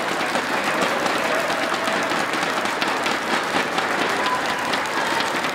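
Spectators applauding after a point in a badminton match, dense clapping with a few voices in the crowd.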